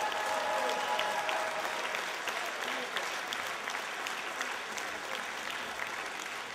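Audience applauding, with the band's last held note dying away in the first second or so.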